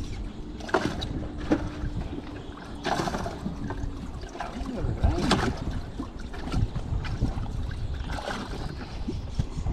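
Water splashing in a bass boat's livewell as a hand gropes for a bass, with scattered knocks against the boat's hatch and hull.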